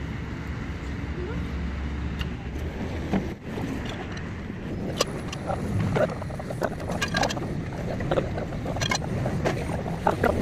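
A steady low engine hum, then, from about halfway in, sharp metal clinks and knocks as a steel truck leaf spring is worked into its chassis hanger.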